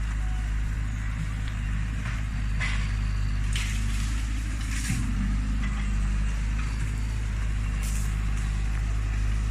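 Heavy diesel engine of a Hitachi excavator running at a steady pitch, with a few short hissing bursts over it.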